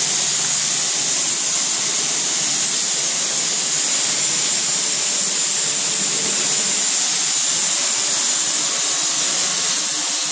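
Turmeric powder pulverizer machine running, a loud steady hiss of rushing air with no rhythm or change.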